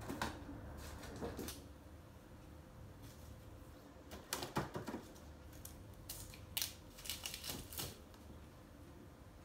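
Ginger roots and tubers being picked up, turned over and set back down in a wicker basket, making irregular clacks and rustles. They come in clusters about a second in, around the middle and again toward the end, over a low steady hum.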